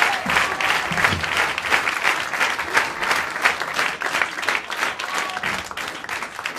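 Theatre audience applauding, a dense steady clapping that slowly dies down towards the end.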